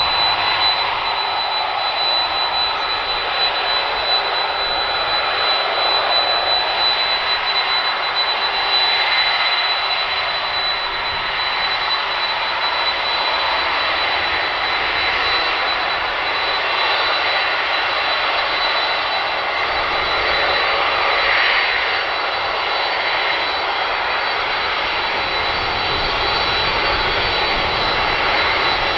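Boeing 747-400's four turbofan engines running at taxi power: a steady jet noise with a constant high whine over it.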